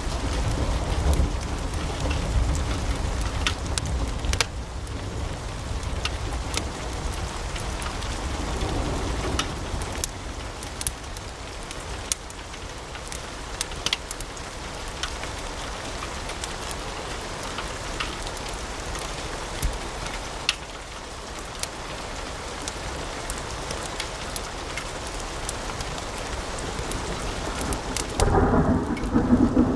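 Wood fire crackling in a fireplace: many sharp pops and snaps over a steady low rumble of the flames. Near the end the sound turns fuller and lower as the high hiss drops away.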